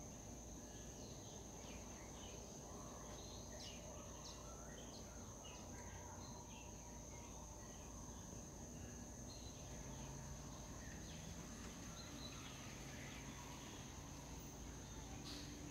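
Faint outdoor ambience: a steady high-pitched insect drone, with scattered short bird chirps over a low steady rumble.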